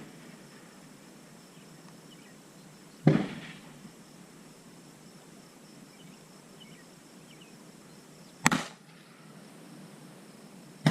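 Two gunshots, about five and a half seconds apart, each a sharp crack with a short echoing tail.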